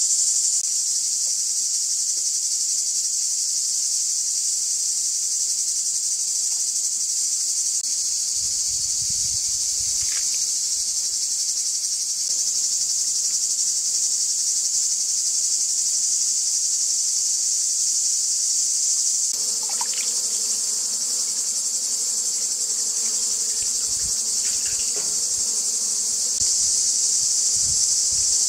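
Loud, steady chorus of insects, a continuous high-pitched chirring that never breaks, with a few faint knocks underneath.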